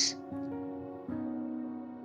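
Soft background music with gentle held piano notes; a new note comes in about a second in.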